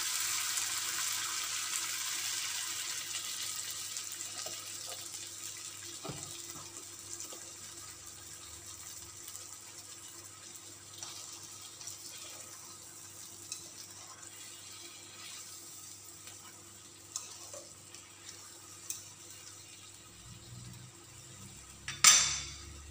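Chicken breast frying in a pan, sizzling loudly as cream is poured over it, the sizzle fading gradually as the cream settles. A few light clicks follow, and there is one sharp knock near the end.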